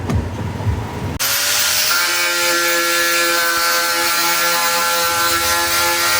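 An electric power tool switches on about a second in and runs steadily at one pitch, its motor whine under a strong hiss. Before it starts, a few low knocks of handling.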